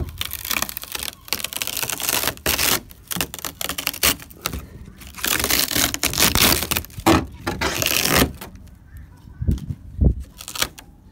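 Brittle old resin crackling and scraping in irregular bursts as it is picked and peeled off a fiberglass boat hull by hand. The resin was laid over holes without fiberglass and has dried hard and separated from the hull, so it flakes away. The bursts die down near the end, leaving a few low thumps.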